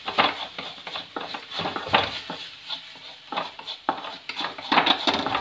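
Wooden spatula stirring and scraping an onion-and-spice masala against an aluminium kadai in quick, irregular strokes, with the oil sizzling lightly underneath.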